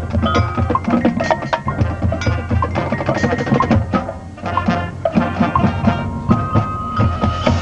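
High school marching band playing its field show: many quick percussion strikes over sustained pitched instrument tones.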